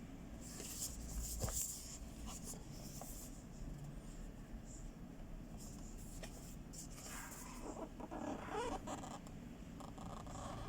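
Rustling and light knocks from a gaming keyboard and its packaging being handled, with a sharp click about a second and a half in and a longer stretch of rustling near the end.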